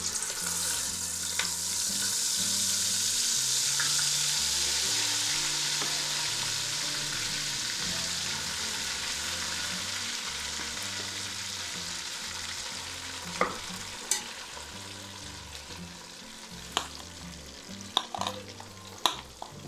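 Ground chana dal paste sizzling as it fries in hot ghee in a pot, the hiss strongest at first and slowly dying down. A spoon stirs and knocks against the pot a few times in the later part.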